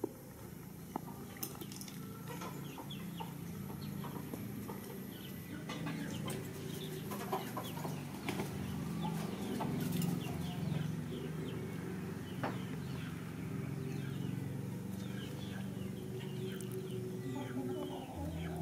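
Chickens clucking in the background, mixed with many short high chirps that repeat through the middle of the stretch.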